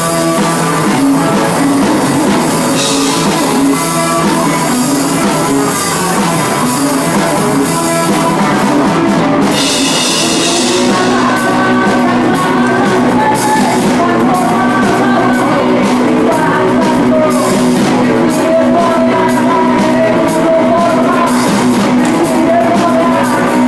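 Live rock band playing: drum kit and electric guitars, loud and steady, with a held melody line coming in about halfway through.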